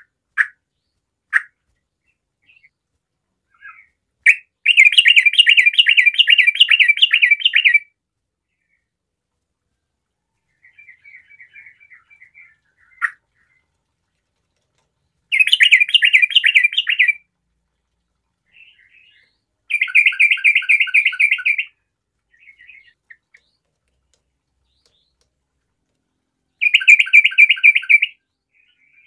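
Yellow-vented bulbul singing: four bursts of rapid bubbling notes, each two to three seconds long, with single sharp chirps and softer chattering between them.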